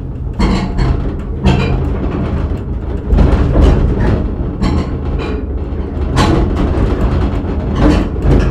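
A small tourist train running along its track, heard from on board: a steady low rumble with irregular knocks and clatter from the wheels every second or so.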